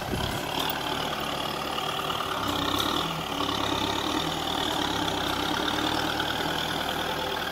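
Kubota M6040SU tractor's diesel engine running steadily as its front blade pushes sand, swelling slightly about two and a half seconds in.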